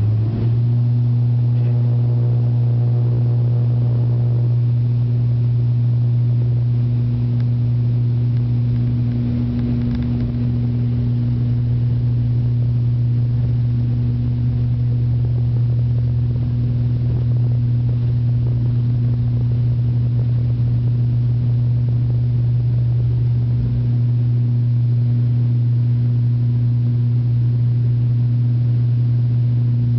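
ATR 72-500 twin turboprop heard from inside the passenger cabin: the steady, deep drone of its six-bladed propellers over a low rumble, holding one constant pitch.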